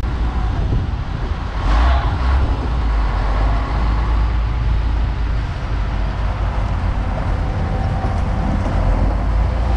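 Heavy diesel machinery running with a steady, deep engine rumble, with one brief louder noise about two seconds in.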